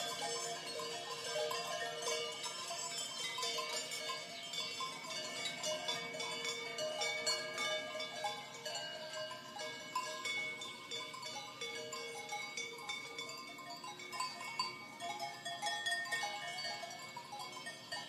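Many cowbells (sonnailles) on a grazing herd clanking at once: a continuous jangle of overlapping ringing tones at many different pitches.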